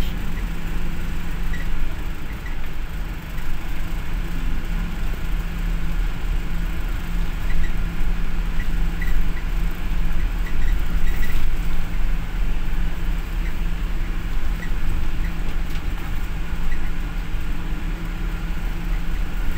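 Cabin noise inside a moving bus: a steady low engine and road rumble, with brief faint high squeaks now and then.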